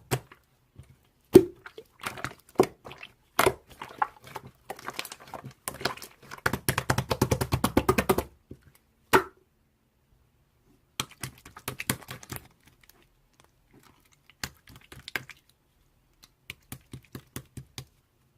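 Slime being squeezed and pressed by hand, giving bursts of sharp clicks and pops, with a dense run of rapid crackling about six to eight seconds in and short silent pauses between handfuls.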